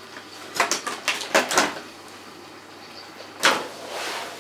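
Small plastic toy hair clips clicking and clattering as they are handled and set down on a tabletop: a few light clicks in the first two seconds and a louder clatter about three and a half seconds in.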